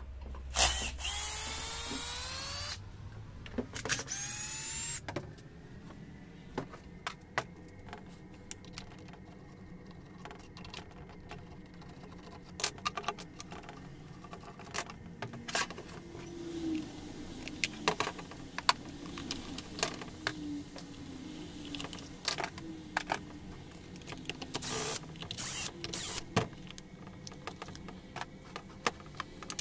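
A cordless drill-driver runs in two short bursts, its pitch rising as the motor spins up, backing screws out of a chainsaw's plastic rear handle. Then come scattered clicks and knocks of plastic parts and tools being handled as the saw is taken apart.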